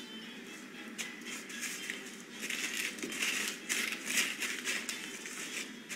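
A plastic zipper bag and paper crinkling as they are handled, growing louder and busier about halfway through.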